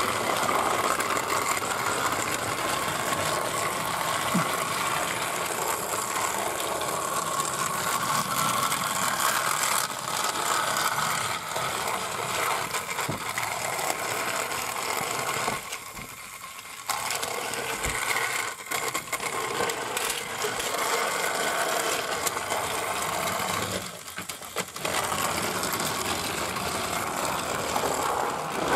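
Battery-powered TrackMaster toy train engine running along plastic track, its motor and gearbox whirring steadily with a clicking, ratchet-like rattle. The sound dips briefly twice.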